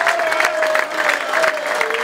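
A roomful of people giving a standing ovation: many hands clapping fast and steadily, with one long held note sounding above the clapping.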